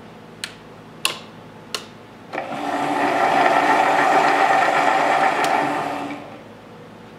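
Three sharp clicks, then a metal lathe runs for about four seconds, building up and fading away. The lathe is running in reverse with the threading tool pulled back, driving the carriage along the lead screw back to the start of the thread.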